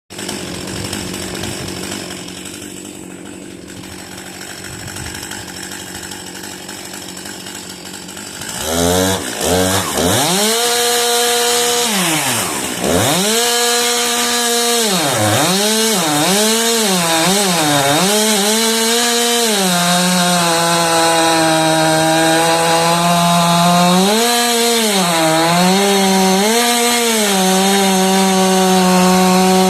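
Stihl two-stroke chainsaw, revved up about nine seconds in. Its pitch swings up and down with repeated throttle blips, dropping close to idle between them. From there it mostly runs at high speed with a few brief dips as it cuts into the wood.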